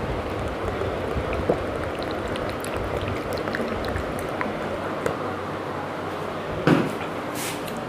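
Steady rushing background noise, with a few faint clicks and a short knock about seven seconds in.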